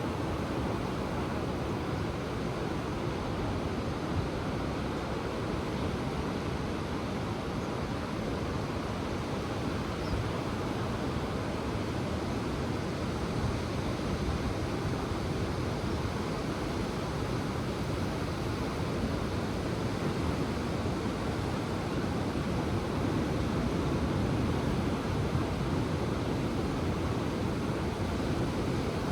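Ocean surf washing steadily onto the shore in a continuous rushing noise, swelling a little louder about two-thirds of the way through.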